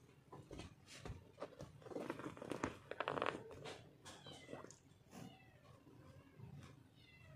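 Two cats play-fighting on bedding: scuffling and rustling of paws and fabric, loudest a couple of seconds in, with a few short high-pitched cat cries in the second half.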